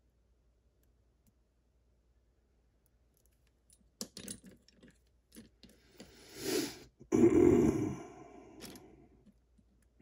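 Metal lock picks and tools clicking and clattering as they are handled and sorted on a cluttered workbench. The sounds start about four seconds in after near silence, with the loudest clatter a little past the seventh second, then fade.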